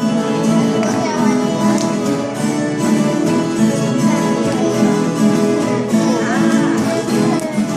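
Viola caipira strummed and plucked in a cururu with singing voices, played continuously.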